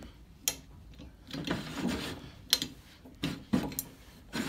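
The height-adjustment crank of a Grizzly G0458Z drum sander being turned to lower the table: several sharp clicks and knocks with scraping from the stiff adjustment mechanism.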